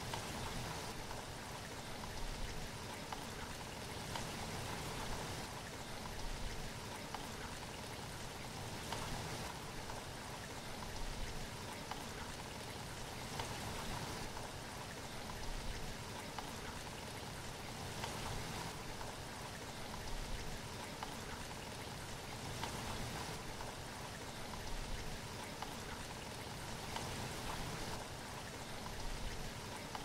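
Mountain stream rushing and splashing over rocks in small cascades: a steady, even rush of water.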